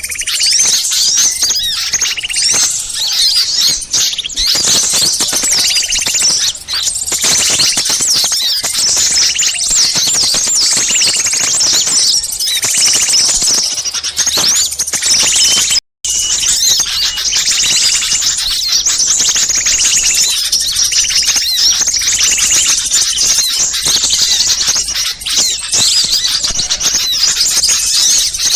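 Dense, noisy chorus of many small songbirds chattering and twittering without pause, a looped bird-lure recording meant to draw in wild small birds. The sound cuts out for a split second a little past halfway, then carries on.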